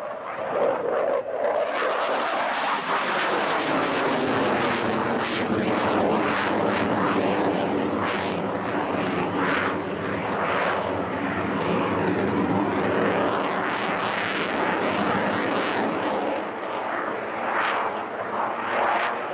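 Saab JAS-39C Gripen fighter's Volvo RM12 turbofan engine running loud in a flying display pass, swelling about a second and a half in and holding. A droning hum of steady tones sits under the jet noise, with a wavering, fluttering edge on top.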